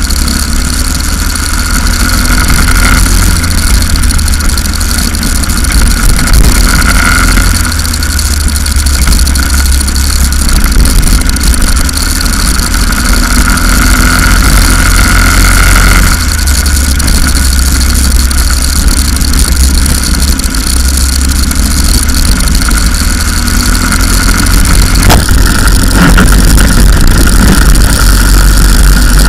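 Go-kart engine heard onboard while lapping a track. Its pitch climbs as the kart accelerates along the straights and drops suddenly as the throttle is lifted about halfway through, then climbs again, over a heavy low rumble.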